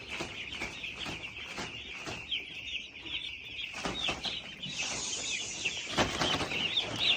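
A poultry-farm flock of chickens calling all at once, a dense chorus of many overlapping high peeping calls with no break. Scattered clicks run through it, and a louder rustling noise joins in near the end.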